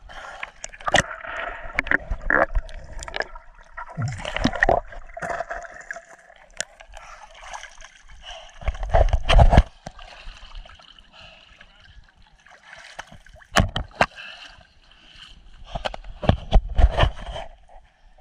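Lake water sloshing, gurgling and splashing right at a waterproof action camera held at the surface by a swimmer, then splashing and dripping as he stands and wades out, with several louder splashes and knocks.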